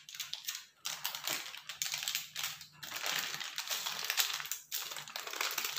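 Parchment paper crinkling and rustling as hands pull on it, sliding a cake out of its baking pan.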